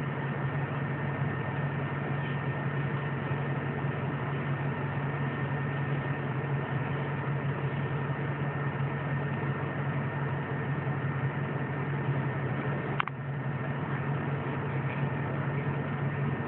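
Steady hum of an idling vehicle engine heard from inside the cab, with an even noise haze and a sharp click about 13 seconds in.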